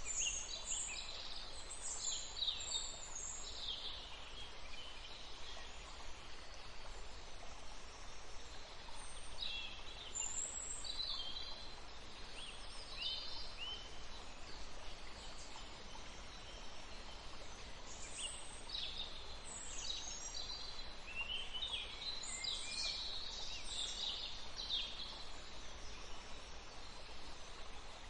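Several small birds chirping and trilling in high, quick bursts that come in three spells, over a steady background hiss.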